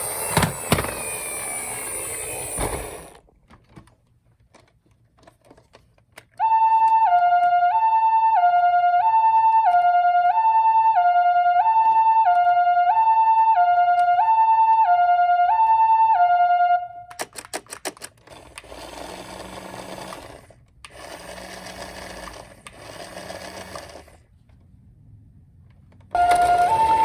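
Ambulance two-tone siren of the Japanese 'pii-poo' kind, alternating between a high and a low tone about once a second, from about six seconds in until about seventeen, and starting again near the end. A louder noisy sound ends about three seconds in, and between the sirens come three short stretches of rushing noise with a low hum.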